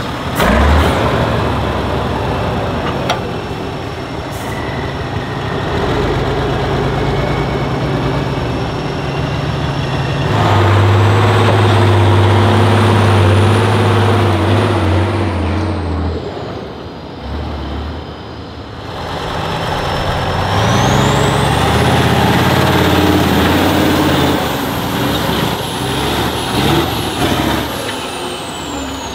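Heavy off-road truck's diesel engine revving hard under load, its note rising and falling. It drops away briefly past the middle, then climbs again in repeated rising revs.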